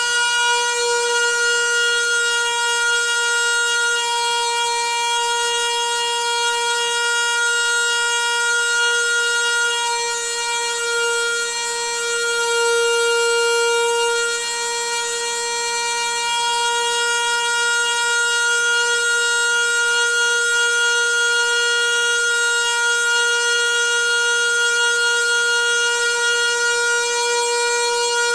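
Noisy water pipe humming with a steady, sustained drone and a stack of overtones, with a hiss over it. The drone holds its pitch throughout, dipping slightly in level and swelling again near the middle.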